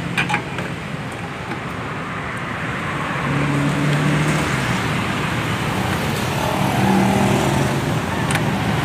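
Steady road traffic noise, with a couple of sharp clicks near the start and near the end.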